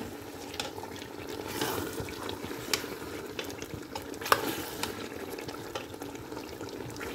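Chicken and potato curry simmering in a metal pot with a steady bubbling hiss, while a spoon stirs it and clinks against the pot a few times.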